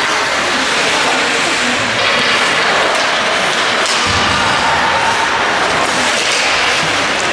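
Ice hockey game sound in an arena: a steady, loud wash of noise from skating and play on the ice, with a few sharp clicks.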